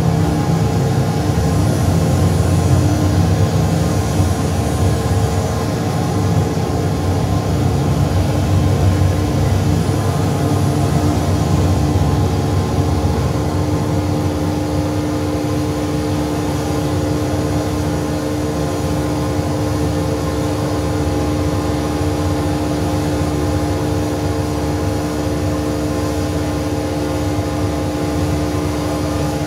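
Modular synthesizer drone built from feedback and processed sound recordings: a dense low rumble under a few steady held tones, the tones growing stronger about halfway through.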